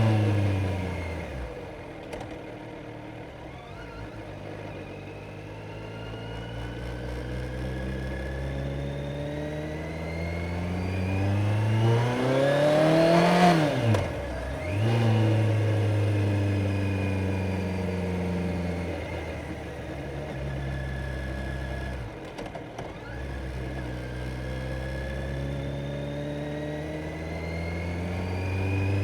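Kawasaki Z900 inline-four motorcycle engine under way. The revs fall off at the start, climb slowly to a high peak about halfway, then drop sharply. They hold steadier, dip briefly, and rise again near the end.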